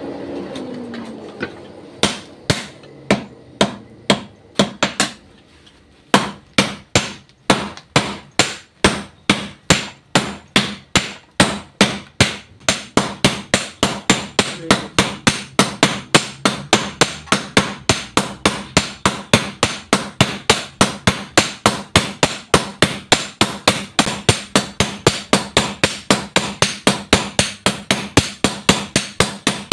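Blacksmiths hammering a red-hot sugarcane-cutting machete (bendo) blade on a small steel block anvil with hand hammers, sharp metal-on-metal blows. A few single blows at first, then a steady team rhythm of about three blows a second.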